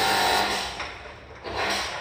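Pressure washer spraying water up into a ceiling cassette air conditioner's evaporator coil, its pump motor running under the hiss of the jet. The spray comes in surges, loudest at the start and again about one and a half seconds in.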